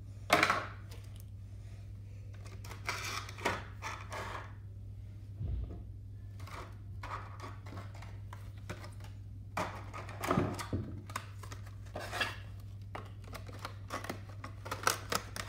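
Clear plastic blister trays crinkling and clicking as they are handled, with small knocks as trays and die-cast model planes are set down on a wooden table, over a steady low hum.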